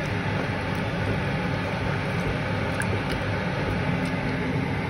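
Steady hum and hiss, with a few faint taps as a wooden spoon stirs chicken curry in a metal pan.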